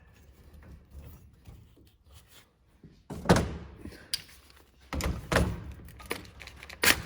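Metal clanks and thunks from work on a combine grain head's cutter bar: a loud strike about three seconds in and a cluster of strikes around five seconds in, with a rapid rattle starting at the very end.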